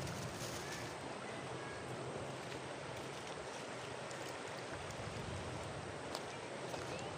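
Steady rushing of a shallow river running over stones, with a few faint ticks near the end.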